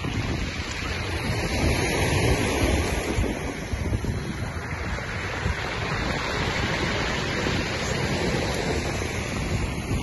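Wind noise on the microphone over a steady wash of sea surf, slightly louder about two seconds in.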